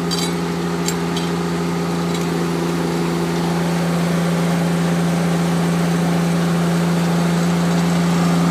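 Steady hum of an HDPE butt-fusion machine's hydraulic power unit running, slowly growing louder as the hydraulic valve lever is worked to release the carriage from the fused pipe joint. A couple of light clicks from the controls come near the start.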